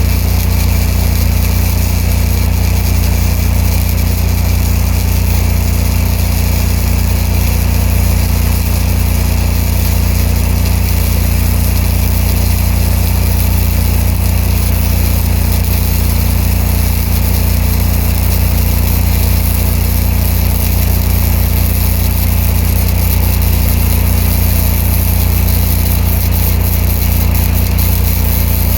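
Engine of a Ranger engine-driven welder running at a steady speed with a constant low hum.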